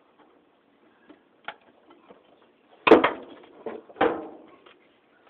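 Two loud knocks about a second apart, with a smaller one between and light clicks and taps around them: tools and metal ceiling-fan parts being handled while the fan is taken apart.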